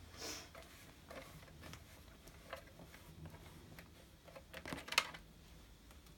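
A damp cloth wiping the plastic casing and tubing of a nebulizer compressor, making faint rubbing and handling noises. There is a short swish just after the start and light scattered clicks, then a quick cluster of sharper clicks and taps about five seconds in, the loudest of them.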